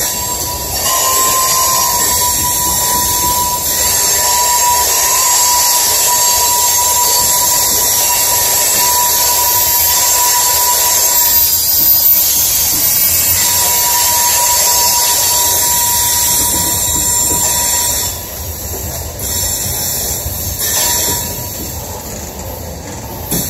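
Loaded coal cars rolling past, their steel wheels squealing from friction against the rail: a thin, steady high squeal that comes and goes over the continuous rush and hiss of the wheels. It gets quieter about eighteen seconds in.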